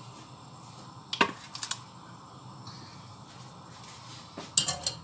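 Metal knocks and clinks of a wire frying skimmer against a stainless steel pot: one knock about a second in, two light clicks just after, and a louder clatter near the end as it is set into the pot.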